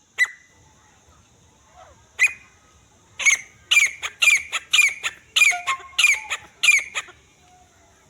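Francolin (teetar) calling: two single sharp calls, then a run of about eight loud, harsh calls at roughly two a second.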